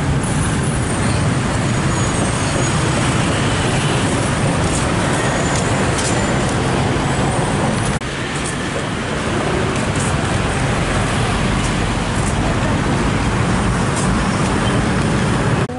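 Busy street traffic: motor scooters, cars and minivans passing in a steady noise, which drops slightly about halfway through.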